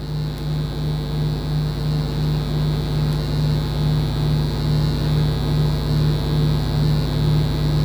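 Steady low electrical hum with a slight even wobble, and a faint high whine above it.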